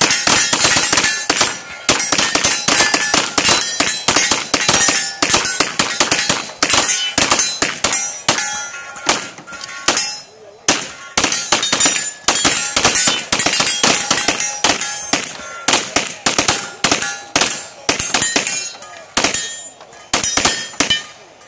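Rapid strings of pistol shots with steel targets clanging and ringing as they are hit, broken by short pauses.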